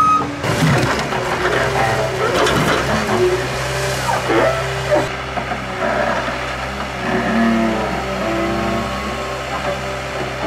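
Forestry forwarder's diesel engine running steadily under load while the hydraulic crane works the logs, its hydraulic whine shifting in pitch. A few knocks in the first seconds.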